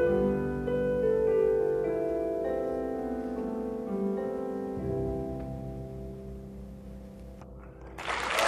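Solo piano playing the last slow chords of a song, each note left ringing and fading away. Applause breaks out near the end.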